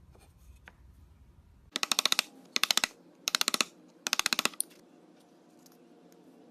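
Four short bursts of rapid mechanical clicking, each about half a second long, in quick succession.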